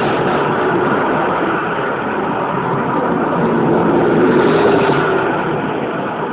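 Busy street traffic, with a city bus passing close by about four seconds in: its engine noise swells and then fades as it goes past.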